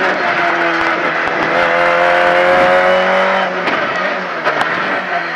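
Renault Clio RS Light rally car's engine heard inside the cabin, pulling out of a hairpin: the revs climb steadily, then drop sharply about three and a half seconds in.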